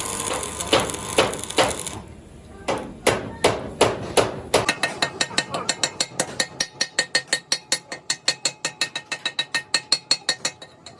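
Hammer blows on metal: a short noisy stretch, then a few separate strikes, then from about halfway a fast, even tapping of several ringing blows a second.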